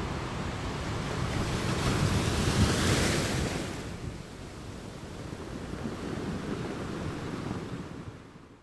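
Surf and wind: an even rushing noise that swells about three seconds in, eases off, and fades out near the end.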